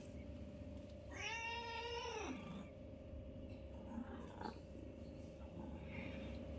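A kitten meows once, a single drawn-out call of about a second and a half that falls in pitch at the end.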